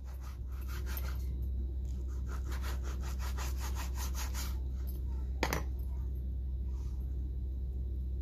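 A kitchen knife sawing back and forth through raw boneless beef on a cutting board, in rapid, evenly repeated strokes that stop about four and a half seconds in. A single sharp click follows about a second later, over a steady low hum.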